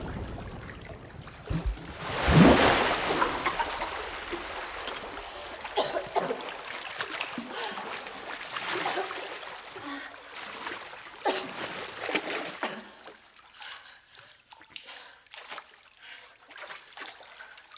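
A woman surfaces in deep water inside a well: a loud splash about two seconds in, then water sloshing and dripping around her as she gasps for breath several times. The sounds grow quieter and sparser near the end, down to scattered drips.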